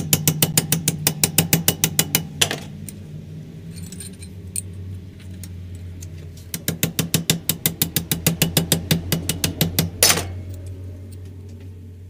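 Rapid, even metallic clicking, about seven clicks a second, in two runs that each end in a short scrape, over a low steady hum.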